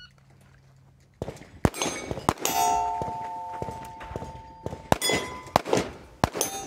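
A string of 9mm Glock 19 pistol shots fired at steel targets, with the struck steel plates clanging and ringing on after the hits. A quick group of shots starts about a second in, the plates ring out through a pause, and more shots follow near the end.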